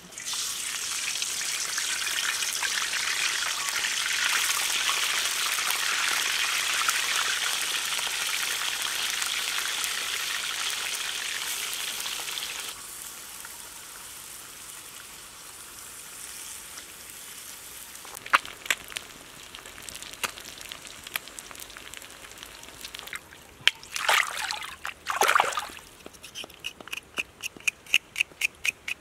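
Fish sizzling as it goes into hot oil in a wok. The sizzling is loud for the first half, then drops abruptly to a quieter hiss. A few sharp knocks and scrapes come later, and near the end a knife cuts ginger in quick regular clicks, about five a second.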